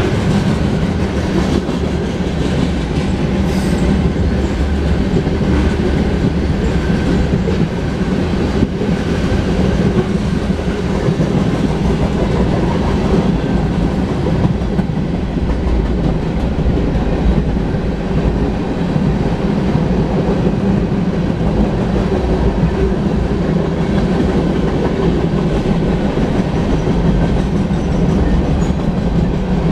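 Freight cars of a long mixed manifest train rolling past close by: a loud, steady rumble of steel wheels on rail.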